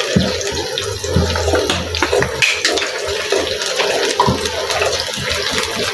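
Hot oil in a frying pan sizzling steadily with many small crackles as red chilli sauce is poured in over ginger-garlic and other sauces.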